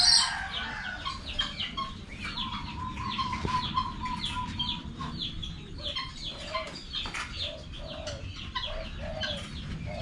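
Birds calling: a steady chatter of short, high, falling chirps, a held whistled note for a couple of seconds, and from a little past halfway a run of lower arched clucking calls about twice a second.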